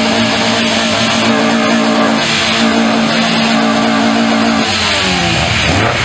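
Car engines running loud. One engine holds a steady high rev, then its pitch falls off about three-quarters of the way through, while other engine notes glide up and down across it.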